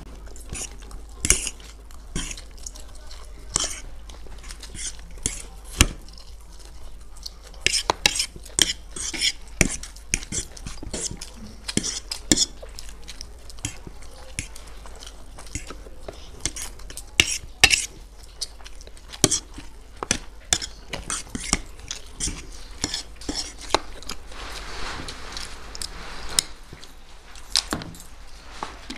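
Metal forks scraping and clinking on plates as two people twirl and eat chowmein noodles at speed, with slurping mouth sounds among the irregular clicks.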